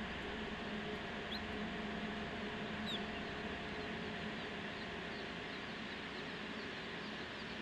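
Day-old chicks peeping: two clear, high falling chirps in the first three seconds, then many faint quick peeps, over the steady hum and hiss of the hatcher's ventilation.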